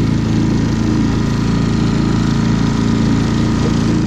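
A dinghy's small outboard motor running steadily at a constant speed, a loud low drone that fades out at the very end.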